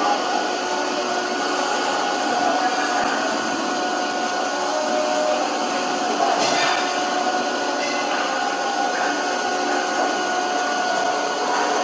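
Steady hissing machine noise of slaughterhouse processing equipment running, with a few faint steady hums underneath. A single short clank about six and a half seconds in.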